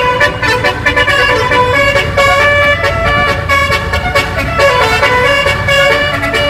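A 12-note 'basuri' telolet bus air horn with roof-mounted trumpets playing a melody: chords of horn tones stepping quickly from note to note, over a low rumble.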